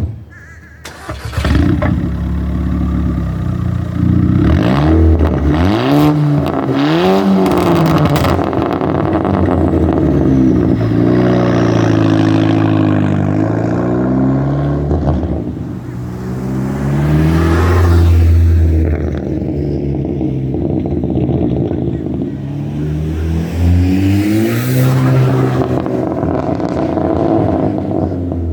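Volkswagen MK5 GTI's turbocharged four-cylinder running through a straight-piped exhaust with a 3-inch catless downpipe and no muffler or resonator, revving up and down several times, with crackles and pops from the exhaust as the revs fall.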